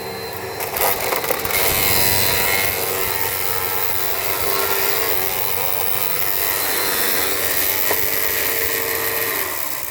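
Eureka Power Speed upright vacuum cleaner running, with a rough scraping, grinding noise from its brush roll as something gets caught in it. Its motor winds down at the end.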